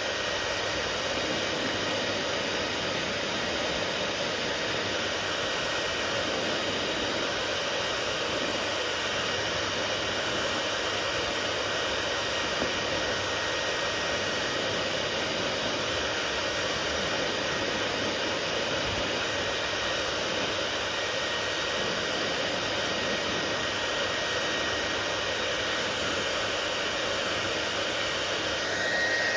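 Hair dryer running steadily: an even, unchanging rush of blown air.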